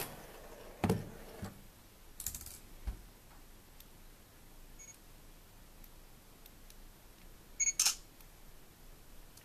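A few knocks of a phone being set down on a desk in the first three seconds, then, near the end, the short pitched click of a phone's camera shutter sound as the Sony Xperia U takes a picture.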